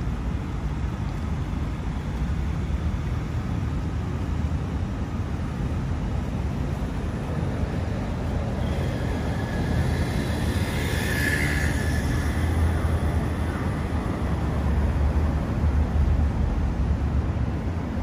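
City street traffic on the road beside the pavement: a steady low rumble of engines and tyres, with one vehicle passing louder and brighter about halfway through.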